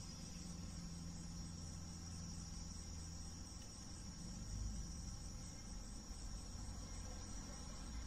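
Steady high-pitched insect trill over a low hum.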